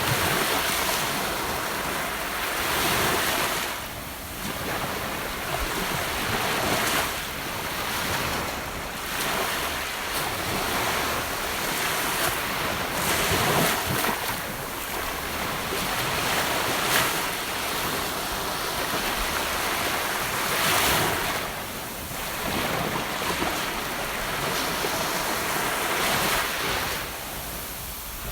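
Gentle ocean waves washing onto a beach shore, a steady surf wash that swells and ebbs every few seconds.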